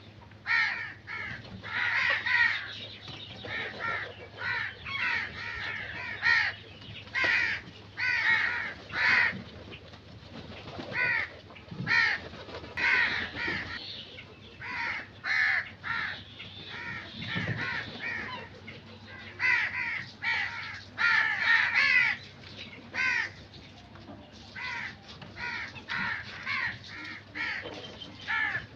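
Crows cawing, many short harsh caws in quick runs one after another with brief pauses between them.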